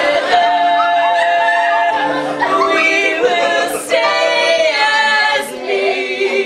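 Stage-musical cast singing together in harmony, holding long notes, with the chord changing about four seconds in and again near the end.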